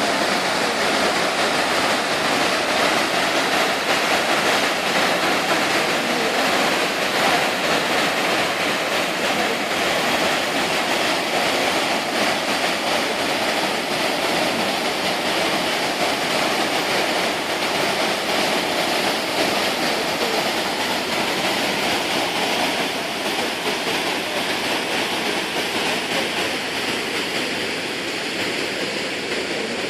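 The Pliva river's waterfall at Jajce: a steady, loud rush of falling water, easing slightly toward the end.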